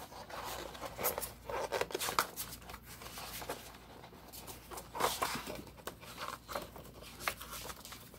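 Paper being handled: irregular rustling and crinkling in short bursts, with a few light clicks.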